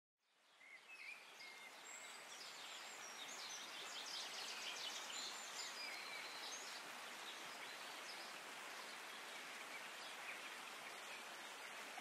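A shallow rocky stream flowing with a steady rush, fading in at the start. Small birds chirp and trill over it for the first several seconds.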